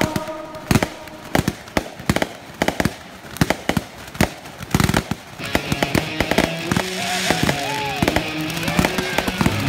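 Ground fireworks going off in rapid, irregular sharp pops and cracks, several a second, with music coming up in the second half.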